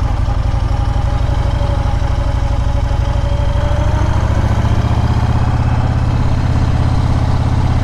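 Motorcycle engine running at low speed on very light throttle, a steady pulsing exhaust note that rises a little about halfway through. The rider finds the throttle response at such low speed and revs very choppy.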